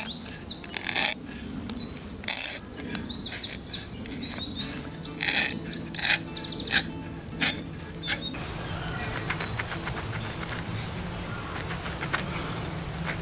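Hand auger boring into the end of a seasoned sycamore stick: sharp cracks and creaks as the bit cuts, with small birds chirping high over it. After about eight seconds this gives way to a quieter, steadier background with faint rapid scratching of a pencil marking a line around the bark.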